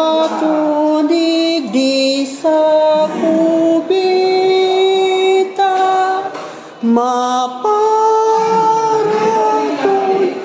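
A high voice singing long held notes that step from one pitch to the next, with a few short breaks between phrases.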